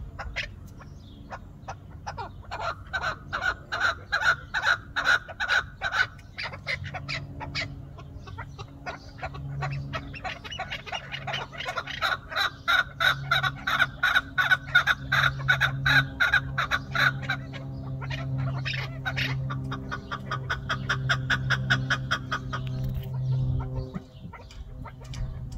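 Partridges calling in long runs of rapid, repeated clucking notes, several a second, in three bouts that build up and die away. A low steady hum runs beneath the later bouts.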